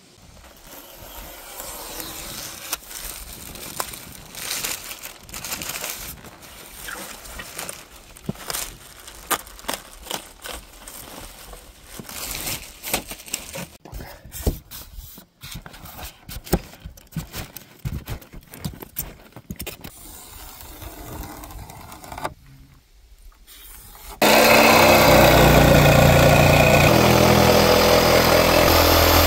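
Irregular scraping and clicking of rigid foam insulation being cut and handled, then for the last few seconds a DeWalt jigsaw running steadily and loudly as its blade cuts through a foam insulation sheet.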